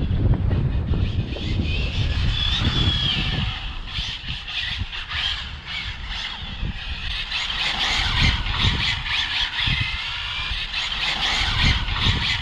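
Brushless electric motor of an Arrma Felony 6S RC car whining, rising and falling in pitch with the throttle, with the tyres squealing and scrubbing as it drifts. A heavy low rumble runs through the first few seconds, then eases.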